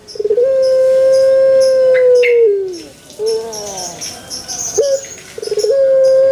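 Two long crows of a pelung rooster, each opening with a quick stutter, holding one steady note for about two seconds and then falling away, with a shorter falling call between them. Small birds chirp faintly in the background.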